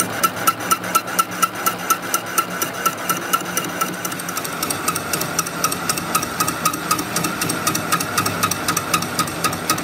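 Metal lathe boring out the bearing bore of a truck differential housing: the machine hums steadily under a rhythmic metallic ticking, about four ticks a second.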